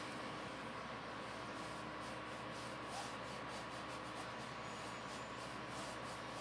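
Flat bristle brush dragging oil paint across fabric in repeated strokes, a faint scratchy rubbing, over a steady hiss with a faint hum.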